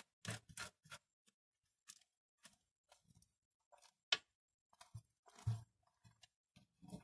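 A card scraping and pressing vermicompost substrate level across the bottom of an aquarium: a series of short, irregular scrapes and crunches, with one sharper click about four seconds in.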